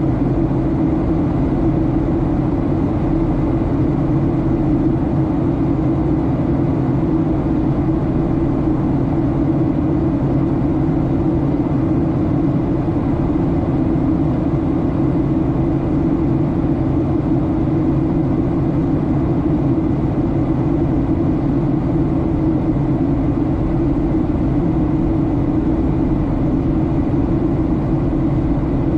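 Steady airliner cabin noise on descent: a low, unchanging drone of the jet engines and air rushing past the fuselage.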